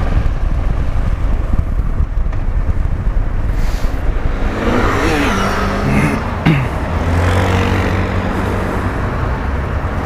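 Honda Transalp 700 V-twin motorcycle running under way in city traffic, mixed with heavy wind rush on the helmet-mounted microphone. About halfway through, the engine pitch rises and falls briefly.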